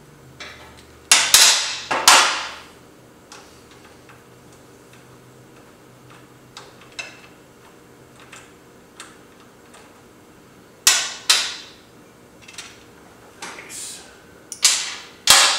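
Sharp metal knocks and clanks of hand tools working on bolts under a motorcycle's frame, each ringing briefly. They come in clusters: two or three about a second in, another pair about two-thirds through, and several more near the end, with faint ticks in between.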